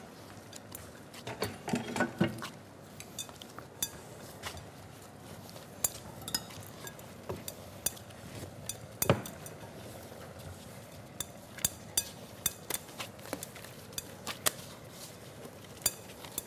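Scattered clinks and knocks of dishes and utensils on a kitchen counter while potato dough is kneaded by hand in a glass bowl. The loudest knock comes about nine seconds in.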